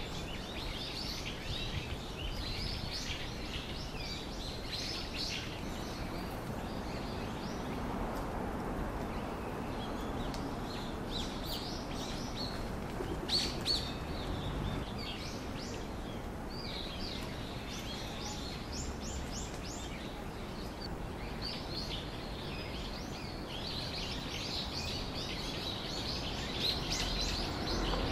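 Small birds chirping in scattered bursts of short, high notes over a steady low background hum.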